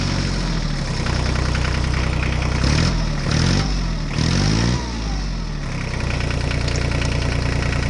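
Engine idling steadily, revving up and back down twice in the middle, then settling back to a steady idle.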